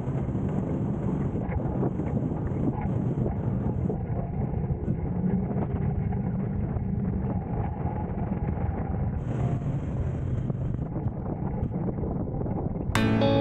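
Side-by-side UTV engine running steadily while driving, with wind buffeting the microphone. Music with plucked guitar notes cuts in abruptly near the end.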